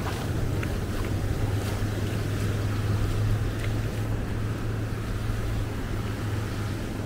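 Ocean surf and wind rushing over the microphone, under a steady low hum.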